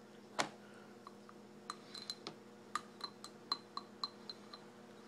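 Plastic baby spoon clinking against a small glass baby-food jar as a toddler scoops out puree: one louder knock about half a second in, then a string of light, quick clinks.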